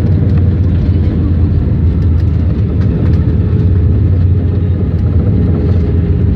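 Airbus A320 on its landing rollout, heard from inside the cabin: a loud, steady low rumble of the engines and the wheels on the runway.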